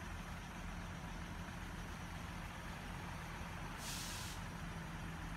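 Steady low hum of an idling engine, with a short hiss of released air about four seconds in.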